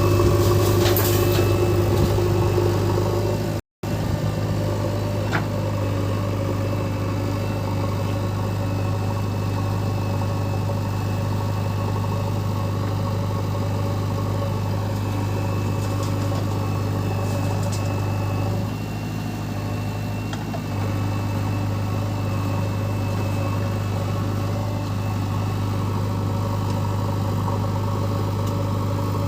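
Heavy diesel engine of an earthmoving machine or truck running steadily at idle, with a brief cut-out about four seconds in.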